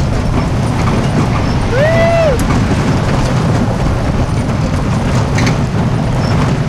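Steady low rumble of a wheeled summer dog-sled rig rolling over a gravel trail behind a running sled-dog team, with a few light rattles. About two seconds in, a short call rises and falls in pitch.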